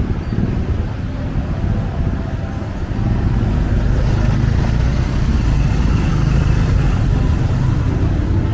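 Street traffic: motor vehicle engines running close by, a low rumble that gets louder about three seconds in as a vehicle comes near.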